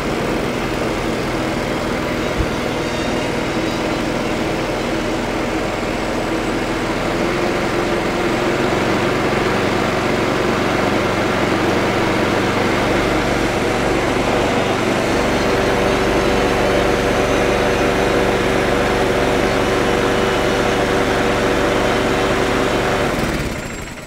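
A McCulloch walk-behind petrol lawnmower's small Tecumseh-carburetted engine runs steadily with its new primer bulb and air filter fitted. It picks up slightly a few seconds in and dies away near the end.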